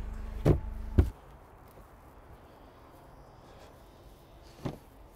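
Two heavy thumps about half a second apart, then faint outdoor background noise, with a softer knock near the end.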